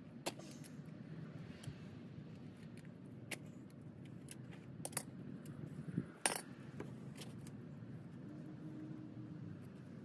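Sharp clicks and clinks of hand tools and small plumbing fittings being handled and set down, about half a dozen, the loudest about six seconds in, over a steady low hum.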